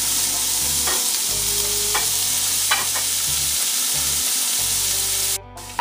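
Diced onion, garlic and ginger with browned pork sizzling in hot oil in a stainless steel soup pot: a steady frying hiss, with a few scrapes as it is stirred. The sizzle cuts off suddenly near the end.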